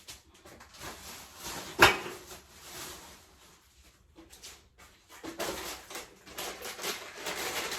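Household handling noise while food is thrown out of a fridge: one sharp knock about two seconds in, then a run of rustling and clattering from containers and a garbage bag being handled.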